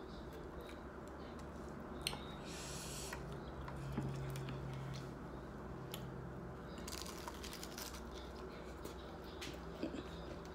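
Quiet chewing with a couple of brief crunches of a hard taco shell, over a faint steady low hum that lasts a few seconds.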